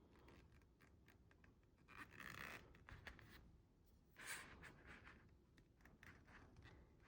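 Near silence, with a few faint scratching, rubbing sounds of hands handling something, about two, three and four seconds in.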